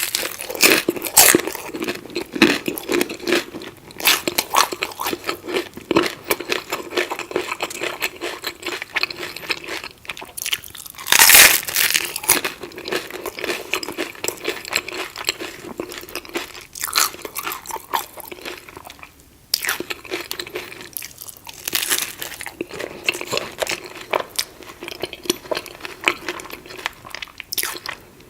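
Close-miked mouth sounds of a person biting into and chewing crunchy food, crackling steadily, with louder crunching bites about 11 seconds in and again near 22 seconds.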